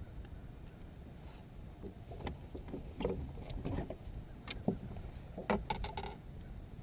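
Scattered knocks and clicks, about a dozen, of a fish and fishing rod being handled on a bass boat's deck, over a low steady background rumble.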